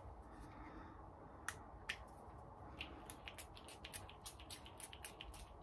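Faint light clicking: two separate clicks about a second and a half in, then from about three seconds in a quick, even run of small ticks, about six a second.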